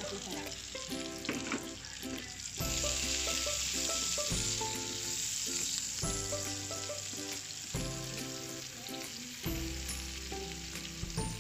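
Chopped red onion sizzling in hot oil in a frying pan, stirred with a wooden spatula. The sizzle grows louder about two and a half seconds in, as the onion goes into the oil.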